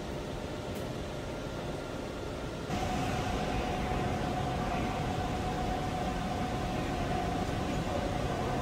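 Milling machine running, its end mill cutting a slot in a PVC tube at 800 RPM. About three seconds in the sound steps up louder, with a steady whine over the machine noise.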